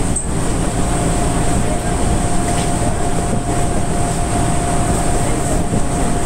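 Enshu Railway 1000-series electric train running along the line, heard from inside at the front of the car: a steady running noise of wheels on rail with a thin steady tone through it.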